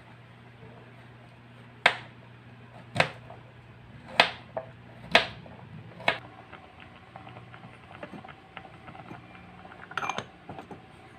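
Miniature knife chopping squash on a small wooden cutting board: five sharp knocks about a second apart, then a run of lighter, quicker taps. Near the end comes a brief metallic clatter from the lid of a small steel pot. A faint steady hum runs underneath.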